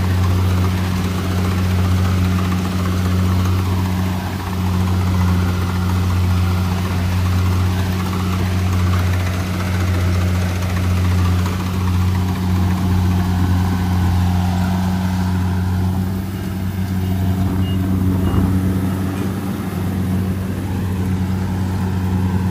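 A small engine running steadily at a constant speed, a loud, even hum that holds without revving.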